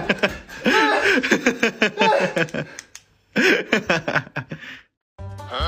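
A person laughing hard in quick repeated bursts. The laughter breaks off twice, and music begins just before the end.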